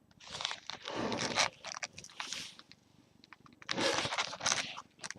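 Handling noise: rustling and scraping in two bursts a couple of seconds apart, with small clicks in between, as things are moved about close to the microphone.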